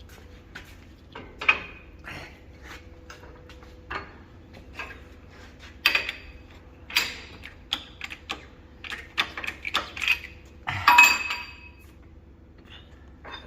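Irregular metallic clinks and knocks of steel parts and tools being handled while a car axle shaft is straightened in a press, a dozen or so strikes, some ringing briefly, the loudest cluster near the end.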